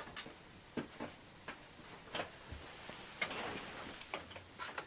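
Faint, irregular light clicks and taps of a graphics card knocking against the metal computer case and drive cage as it is lined up for its expansion slot, with a brief scrape about three seconds in.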